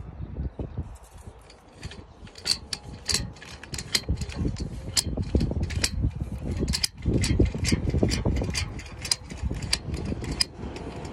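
Sewer inspection camera's push cable and reel being worked as the camera is fed down a cast iron drain pipe. Irregular sharp mechanical clicks, about two to three a second, over a low rumble.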